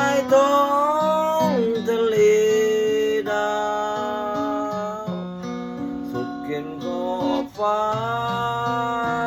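Song accompaniment on an acoustic guitar, strummed, with long held melody notes over it that slide up into pitch near the start and again near the end.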